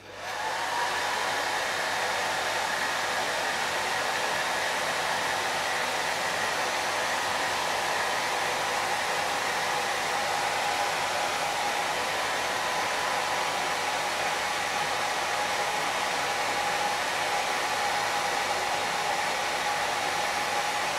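Handheld hair dryer switched on and then blowing steadily, a constant rush of air with a whine that settles slightly lower in pitch over the first few seconds. It is aimed at a ceiling fire detector to heat it into alarm.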